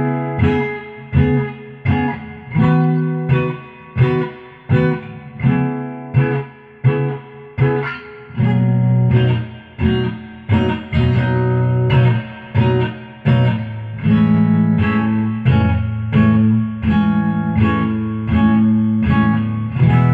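1938 Epiphone archtop guitar strummed through its acoustic contact pickup and a Fender Hot Rod Deluxe amp. Short chord stabs come roughly every 0.7 s. From about 8 s in the strumming becomes denser and sustained, ending on a held, ringing chord.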